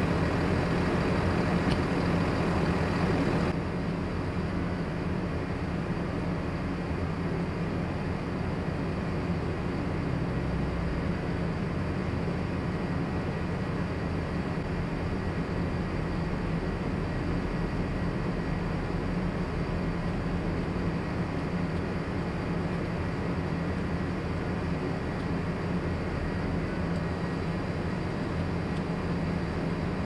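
A vehicle engine running steadily with a low, even hum, stepping down slightly in level a few seconds in.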